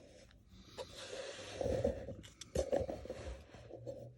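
Close handling noise: rustling and scraping with a few sharp clicks and knocks, like hands fiddling with a camera or cards.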